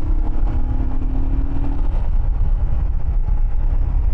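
Royal Enfield Himalayan motorcycle riding along the road, its engine a steady hum that fades about two seconds in, under a heavy rumble of wind on the microphone.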